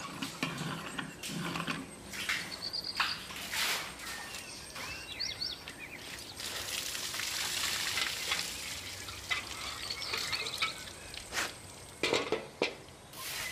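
A broom sweeping a yard: irregular scraping strokes, with birds chirping now and then.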